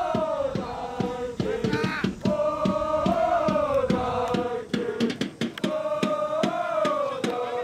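A crowd of supporters in the stands chanting a song in unison over a steady, fast beat. The chant comes in drawn-out phrases of about two seconds, separated by short breaks.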